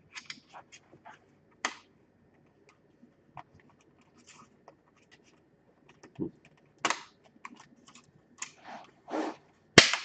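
Plastic laptop case parts being pushed and fitted together: scattered clicks and short scrapes, with the sharpest click near the end.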